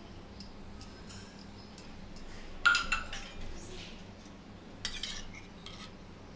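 Steel spoon clinking against a steel bowl and dishes, with light ticks and scrapes. There is a sharp clink with a short ring a little under three seconds in, and a cluster of clinks about five seconds in.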